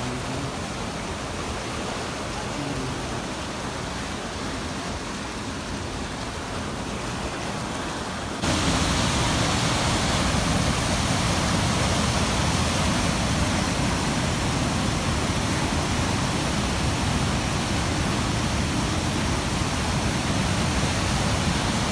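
River water rushing through rock channels and pools, swollen after heavy rain, as a steady rush of noise that turns abruptly louder about eight seconds in.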